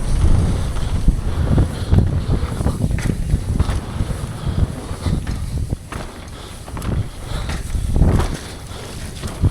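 Downhill mountain bike ridden at speed over rough dirt trail: wind rushing over the mounted camera mic, tyre rumble and repeated knocks and rattles from the bike over bumps, with a heavier hit near the end.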